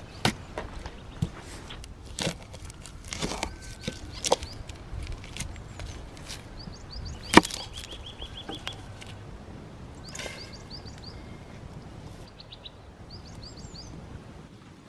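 Kitchen knife cutting an onion on a thick wooden board: irregular sharp knocks of the blade on the wood, the loudest about seven seconds in, dying away in the last few seconds. Birds chirp in short runs in the background.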